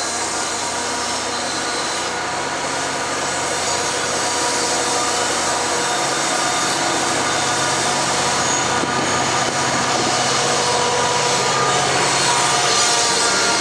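Passenger coaches of a commuter train rolling past: a steady rumble of wheels on rail with a few faint steady tones. It grows louder toward the end as the diesel locomotive pushing at the rear draws near.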